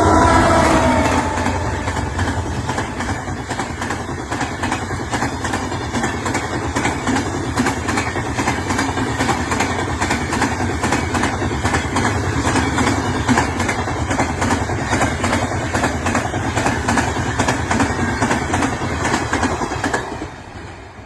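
Indian railway train running on the track: a dense, rapid clatter of wheels over the rails that goes on without a break. A chord of several tones fades out in the first second, and the clatter drops away about a second before the end.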